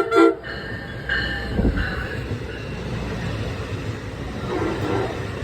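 Double-decker commuter train: two short horn toots right at the start, then the train's steady low rumble running on.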